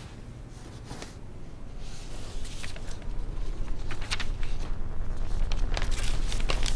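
Stiff paper and cardboard rustling and crackling in short bursts as a folded sheet of paper is handled and unfolded over an open cardboard box. Underneath, a low rumble grows steadily louder from about two seconds in.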